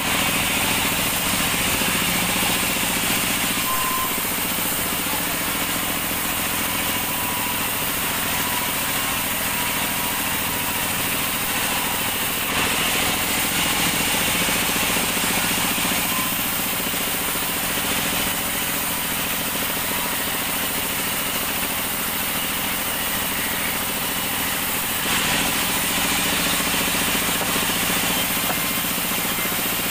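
Sawmill band saw running and cutting lengthwise through an acacia log: a continuous, even mechanical hiss and hum that swells slightly a few times.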